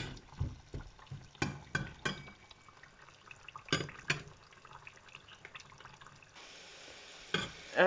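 Sweet potato sticks frying in a pan of hot oil, bubbling, with scattered sharp clicks and taps from a metal slotted spoon against the pan. A steady hiss comes in about six seconds in.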